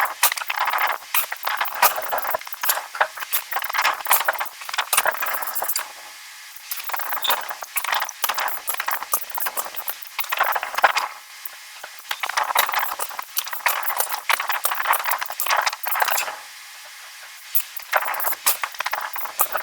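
Metal clinking and clattering from forging work on hot iron. It comes as rapid, dense bursts of sharp clinks with a few short lulls between them.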